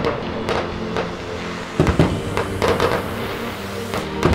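Fireworks going off: a string of irregular bangs and crackles, the loudest about two seconds in, over a steady low rumble.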